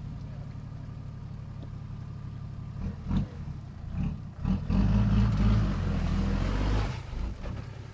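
Toyota Land Cruiser HDJ80's 1HD-T turbo-diesel straight-six idling, then blipped twice and held at higher revs for about two seconds as the truck crawls up out of a muddy rut under load, then easing back down.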